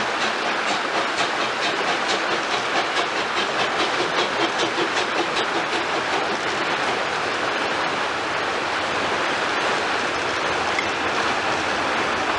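Rhaetian Railway metre-gauge steam tank locomotive No. 11 "Heidi" chuffing past with a steady beat of about four exhaust beats a second. From about six seconds in the beat gives way to the even rolling noise and wheel clatter of its coaches going by.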